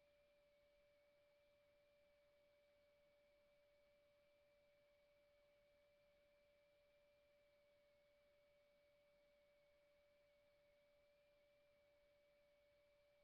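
Near silence with a faint, steady, unchanging tone and a weaker higher tone above it.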